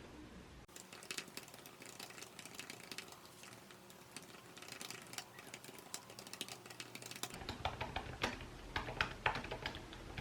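Typing on a computer keyboard: quick, irregular key clicks, starting about a second in and getting a little louder near the end.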